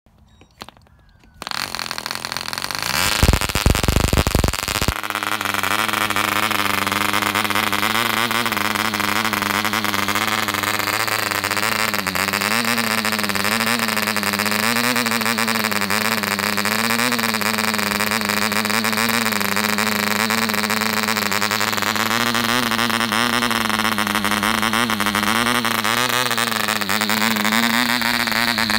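Taifun Hobby 0.98 cc model diesel engine turning a 7x4 propeller, catching about a second and a half in and then running steadily with its note wavering slightly. There is a loud rumbling from about three to five seconds in. The engine is new and tight, so it is run rich at low revs as a break-in heat cycle.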